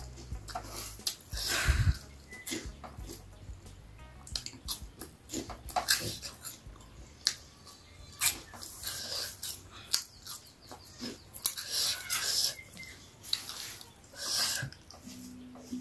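A person chewing and eating spicy noodles by hand close to the microphone, with many short, irregular mouth clicks and noisy chewing sounds.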